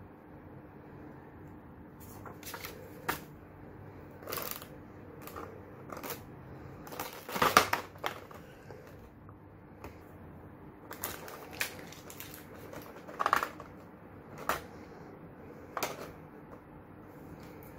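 Clear plastic blister packaging and its plastic film crinkling and crackling as they are handled, in short irregular spells, the loudest about seven and a half seconds in.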